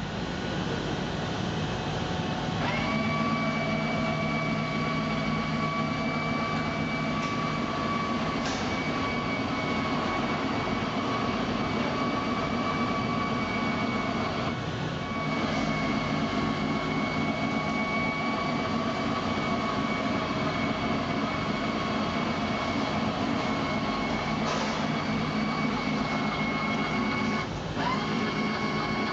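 Electric winch motor running with a steady whine as it winds in the cable to raise the kiln. The whine stops briefly near the end and starts again.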